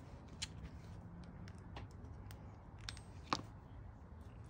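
A few faint, sharp clicks and ticks from a new spark plug being handled in the fingers, the loudest about three seconds in, over a low steady hum.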